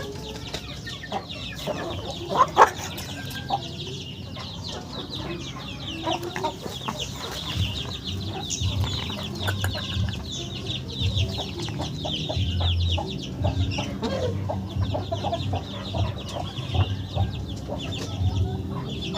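Chickens clucking and chirping, with many short high calls running on throughout, and a sharp knock about two and a half seconds in.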